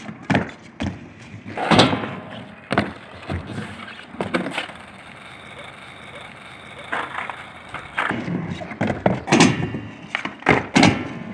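Skateboard riding on a skatepark ramp and ground: wheels rolling and the board knocking and slapping down in a series of sharp clacks, as it does when a trick is popped and landed or bailed. The knocks come in a cluster, then ease off for a few seconds in the middle, then pick up again in a quick run near the end.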